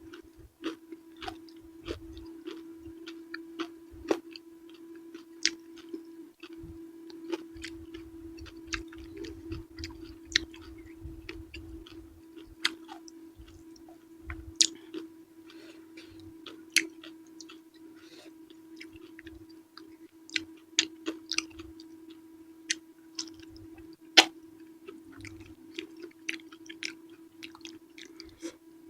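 Close-miked chewing of purple eggplant with chili sambal: wet smacking mouth sounds with many sharp clicks at irregular intervals, over a steady low hum.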